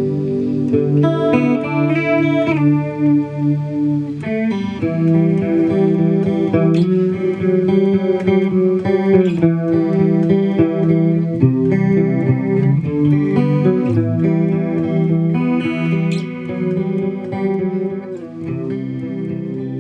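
Les Paul electric guitar played through an MXR Analog Chorus pedal: picked chords and ringing notes, getting quieter near the end.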